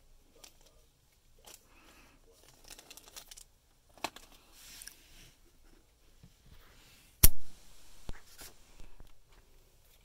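Plastic packaging rustling and crinkling as test leads in their bags are handled, in short bursts, with one sharp knock about seven seconds in and a smaller one just after.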